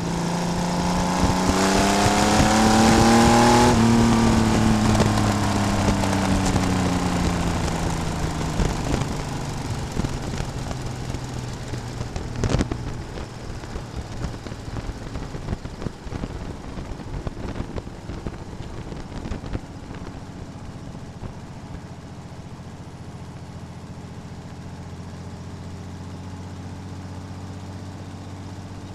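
Race car engine heard from on board the car, rising in pitch as it accelerates for the first few seconds, then backing off and settling into a quieter, lower, steady run. A brief sharp knock about twelve seconds in.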